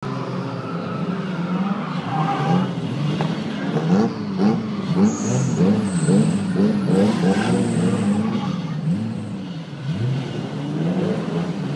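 Drift cars' engines revving hard as they slide sideways in a group, the engine pitch swinging up and down about twice a second as the throttles are worked, over the hiss of sliding tyres.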